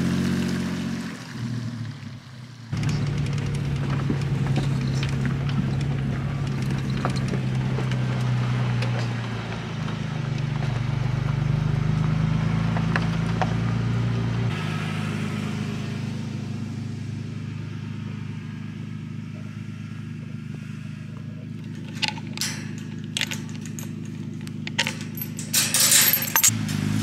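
A Nissan Patrol 4WD's engine running steadily, its hum changing abruptly at cuts. Near the end come metallic clicks and rattles of a chain being handled on a wire farm gate.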